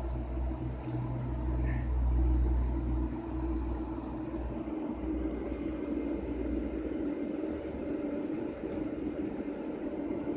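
Antminer S2 bitcoin mining rigs running, their cooling fans making a steady whirring drone with a fixed hum. A deeper low rumble underneath drops away about halfway through.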